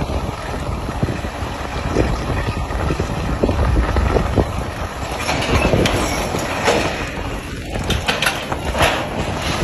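Wind on the microphone and a heavy mechanical rumble as a mobile truck crane lifts a fishing boat. From about halfway in, a growing clatter of creaks and cracks as the overloaded crane begins to tip over.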